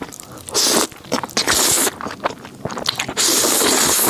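Close-miked eating sounds: crunchy bites and chewing, with several loud crunching bursts about half a second, a second and a half, and three seconds in.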